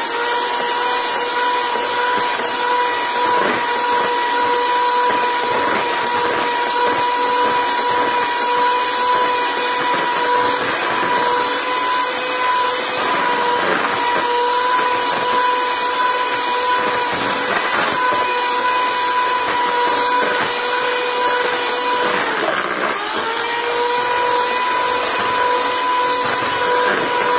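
Electric hand mixer running steadily with a high motor whine as its beaters cream butter and sugar. The pitch sags briefly about 22 seconds in, then comes back up.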